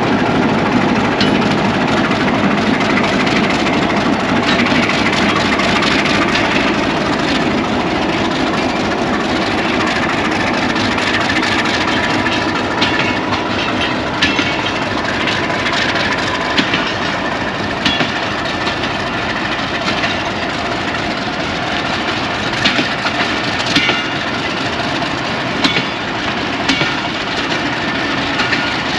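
Pakistan Railways PHA-20 Hitachi diesel-electric locomotive pulling a passenger train away from a standstill, its engine running under load. From about twelve seconds in, the coaches' wheels click over the rail joints as they roll past.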